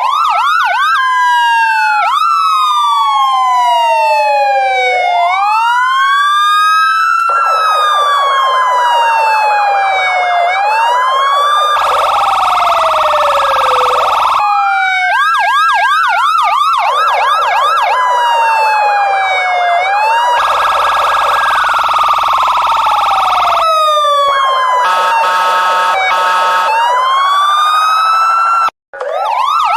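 Electronic police car siren cycling through its tones: slow wails that rise and fall, fast warbling yelps, and two harsh, steady horn-like blasts of a few seconds each. It cuts out briefly about a second before the end.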